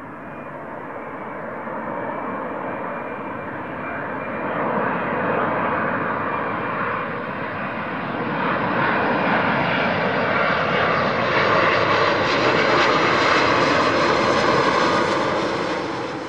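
Boeing 787 airliner's jet engines on final approach with the landing gear down: a continuous engine rumble with a steady whine that grows steadily louder as the aircraft comes close, loudest near the end.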